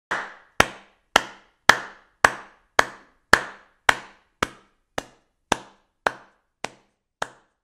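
A sharp knock repeated at a steady pace, about two a second, fourteen times. Each has a short ringing tail, and the last few are fainter.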